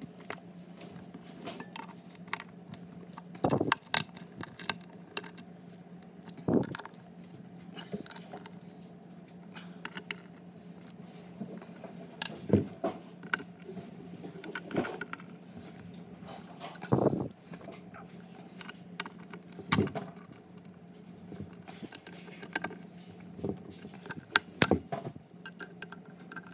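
Ratchet clicking and metal clinks as the compressor-housing bolts on a Garrett turbo are run down in turn, with irregular sharp clicks in short clusters over a steady low hum.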